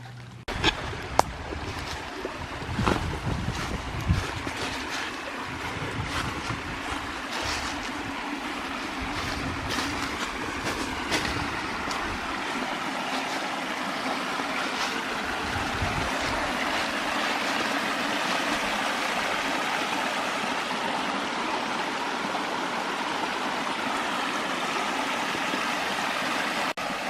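Creek water rushing over rocks, growing steadily louder, with a scatter of sharp knocks and low thumps through the first half.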